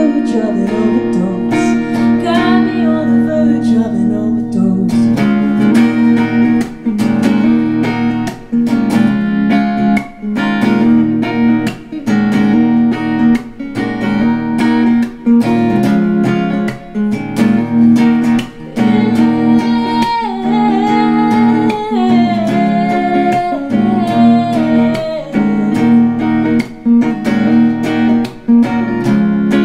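A woman singing to her own steadily strummed guitar, a live solo song performance.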